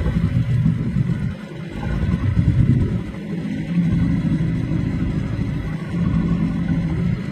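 Fishing boat's engine running, a low rumble that rises and falls in loudness.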